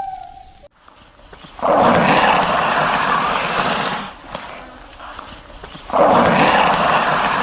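A large animal roaring twice. Each roar is long and rough and lasts about two and a half seconds. The second begins about two seconds after the first ends.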